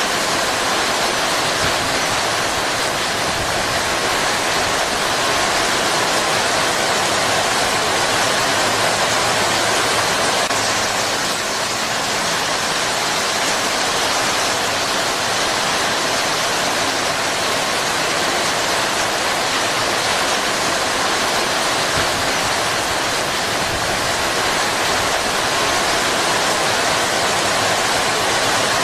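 Heavy rain falling steadily, a dense even hiss of drops on leaves.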